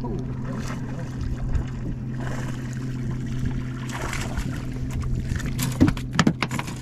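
A hooked fish thrashing and splashing at the water's surface while being reeled toward the boat, with several sharp splashes close together near the end, over a steady low hum.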